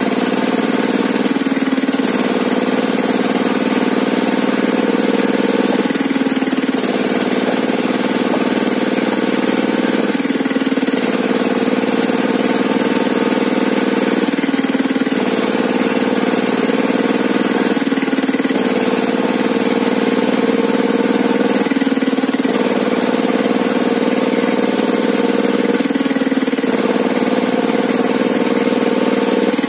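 Engine of a sawmill table saw running steadily, its pitch dipping and coming back up about every four seconds.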